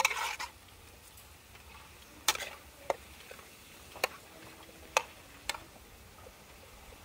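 A metal spatula stirring in a stainless steel wok: a short scrape at the start, then a few sharp single clinks of spatula on pan about a second apart.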